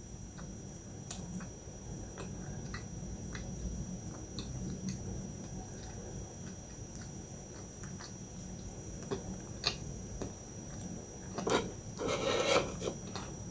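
Close-miked chewing of flaky milk pie pastry: small mouth clicks and smacks scattered throughout, with a louder crackly rustle near the end.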